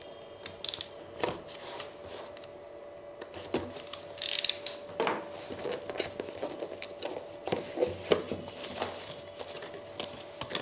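Cardboard gamepad box and its packaging being handled and opened: scattered clicks and knocks, with a short rustle of packaging about four seconds in. A faint steady hum runs underneath.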